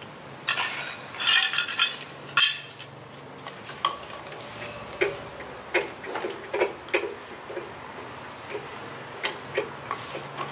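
Metal clinking and rattling at a drill press for a couple of seconds, then a string of separate sharp clicks as gloved hands work the drill press's keyed chuck.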